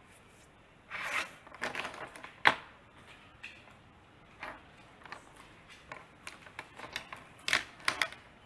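Irregular rustling and clicking handling noises close to the microphone, starting about a second in, with one sharper click about two and a half seconds in and a quicker cluster of clicks near the end.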